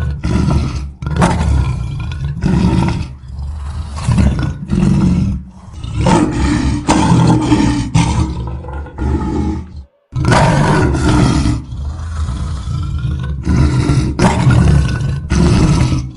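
Lion roaring: a long run of short, deep roaring grunts, one after another. The sound cuts out completely for a moment about ten seconds in, then starts again.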